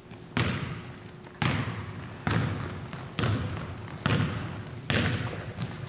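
A basketball dribbled on a hardwood gym floor: six sharp bounces a little under a second apart, each ringing out in the big hall. Near the end, a few short high squeaks, as of sneakers on the floor.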